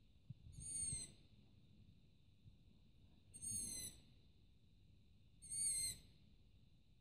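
Juvenile long-eared owl giving its begging call for food: three high, squeaky calls about two and a half seconds apart, each about half a second long and falling slightly at the end.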